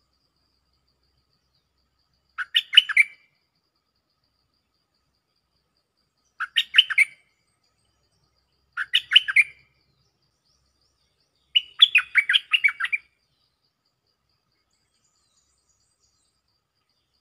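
Stripe-throated bulbul singing: four short phrases of quick notes a few seconds apart, the last one the longest.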